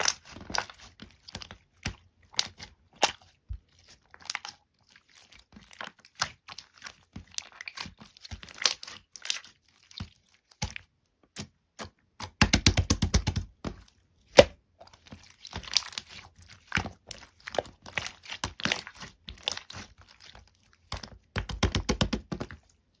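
Jelly-textured slime worked by hand, giving sticky squelches, clicks and small air-bubble pops. Two stretches of rapid popping come about halfway through and again near the end.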